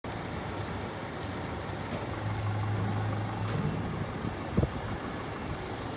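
Steady vehicle noise with a low engine drone for about a second and a half in the middle, and a single sharp knock about four and a half seconds in.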